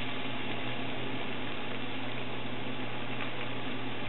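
Chopped onion sizzling in hot oil in a pan, a steady hiss just after the onion goes in, over a constant low hum.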